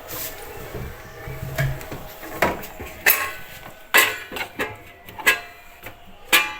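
A series of sharp, irregular knocks and clatters, like household objects or dishes being handled and set down, about eight in all.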